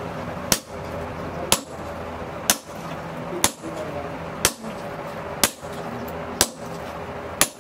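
Hand hammer blows on red-hot chainsaw-bar steel held on an anvil: eight sharp ringing strikes at an even pace of about one a second, forging the hot blank.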